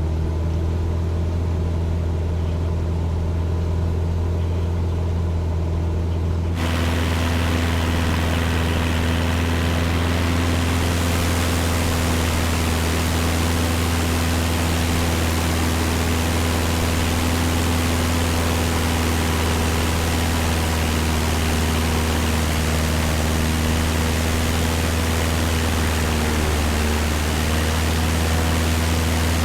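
Cessna 172's piston engine and propeller droning steadily in flight, heard from inside the cabin as a low, even hum. About six seconds in, a rushing hiss of air noise abruptly joins it and continues.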